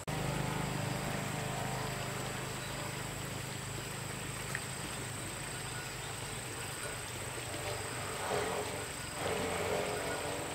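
Outdoor ambience: insects keeping up a steady, high-pitched drone over a low hum. A couple of brief, louder, rustling swells come near the end.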